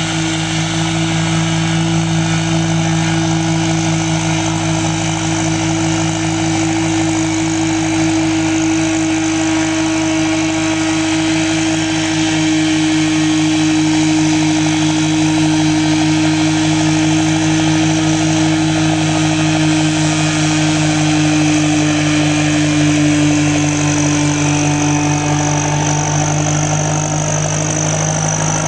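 Farmer F-9258 TE tractor's diesel engine running steadily under load while driving a Samasz mower cutting grass, a steady drone with a whine from the mower drive.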